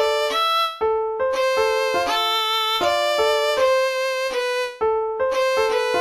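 Computer playback of a violin-and-piano piece written in Finale NotePad: a violin melody of separate notes over piano, in short phrases with brief pauses about a second in and near the end.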